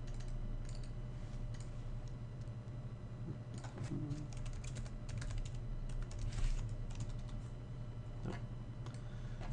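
Computer keyboard typing in short scattered bursts of keystrokes, over a steady low electrical hum.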